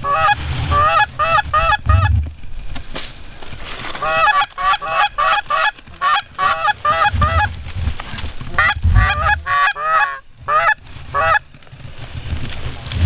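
Geese honking in three quick runs of short, bending honks, several a second, with low rumbling thumps between them.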